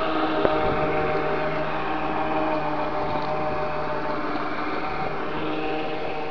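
Steady machine hum at one constant pitch, like a running motor, with a single short click about half a second in.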